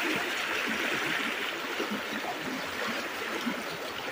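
Fast-flowing floodwater rushing steadily down a flooded village lane, a continuous hiss.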